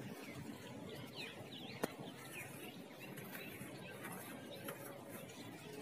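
A dry red sand clod crumbling in the hands, the loose sand trickling and pouring through the fingers with a soft, gritty rustle. Birds chirp throughout, and there is one sharp click about two seconds in.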